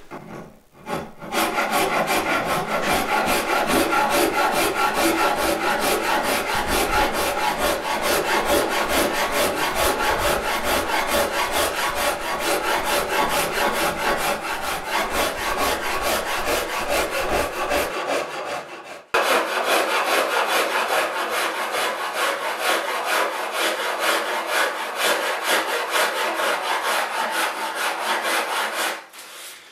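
Saw rasp cutting a wooden guitar neck in rapid, continuous back-and-forth strokes, shaving a corner off to form a facet while carving the back of the neck. The strokes stop briefly about two-thirds of the way through, then carry on.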